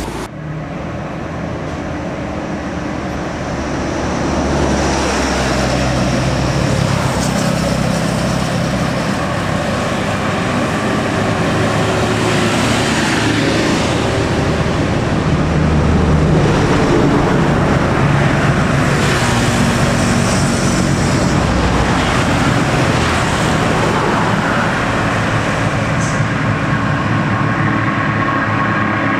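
Heavy diesel truck engines labouring up a steep climb under load as the trucks pass. The sound swells a few seconds in and stays loud, its engine note changing as different trucks go by.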